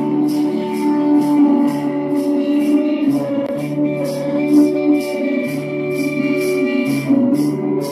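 A band's demo recording playing: a bass line moving between notes under sustained pitched chord tones, with a steady high percussion beat.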